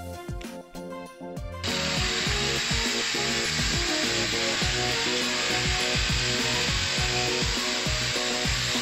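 A hand-held power tool starts about one and a half seconds in and cuts steadily into a solid surface shower wall panel, enlarging the soap caddy opening. Background music plays throughout.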